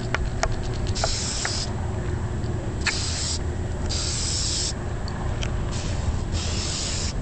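Aerosol spray-paint can sprayed in four short bursts of hiss over a steady low rumble.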